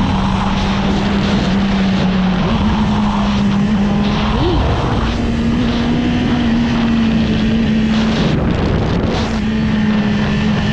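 2014 Yamaha R6's inline-four engine running at steady revs while riding, its pitch stepping up slightly a couple of times, with a brief throttle blip about four and a half seconds in. Wind rushing over the microphone.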